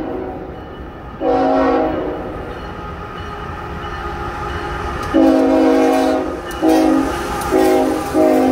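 CSX freight locomotive's air horn sounding a chord in several blasts as the engine approaches slowly: one about a second in, a longer one about five seconds in, then three short blasts in quick succession near the end. The locomotive and train rumble steadily underneath.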